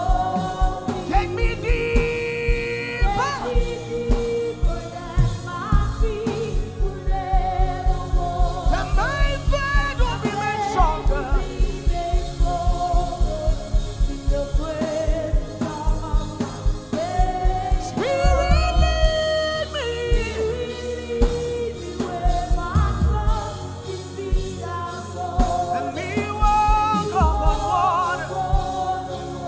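Live gospel worship music: singing over a band, with a steady drum and bass beat.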